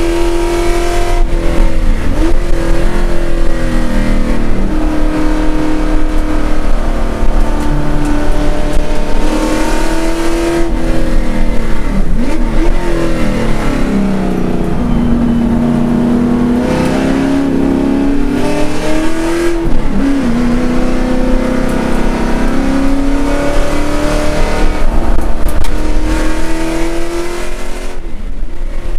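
Commodore race car's V8 engine at full racing load, heard from inside the cockpit: the pitch climbs under acceleration and drops sharply at several upshifts, sits lower through a corner in the middle, and eases briefly near the end as the driver lifts.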